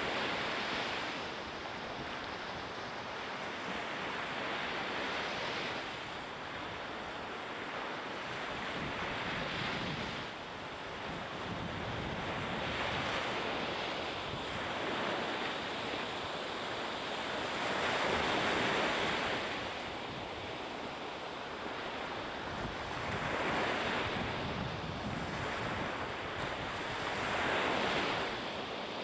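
Sea waves and wind: a steady rushing wash that swells louder every four or five seconds.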